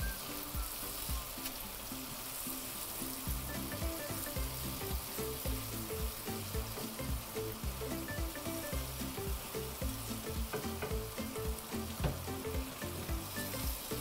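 Shrimp sizzling in a buttery orange-juice sauce in a nonstick frying pan on a gas flame, stirred with a wooden spatula that scrapes and knocks against the pan.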